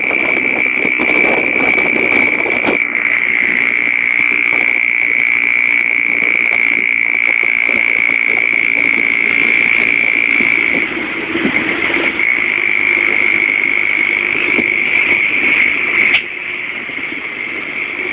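Vehicle engine and road noise from driving along a highway past trucks, with a steady high-pitched whine throughout. The level drops slightly about sixteen seconds in.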